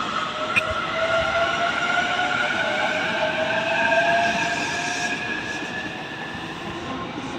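E233-3000 and E231-1000 series electric multiple units pulling away, their inverter-driven traction motors whining in several tones that slowly rise in pitch as the train accelerates, over wheel and running noise. A brief click comes about half a second in.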